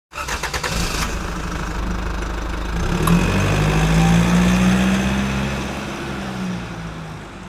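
Vehicle engine clattering briefly as it starts, then running and revving up about three seconds in before fading away.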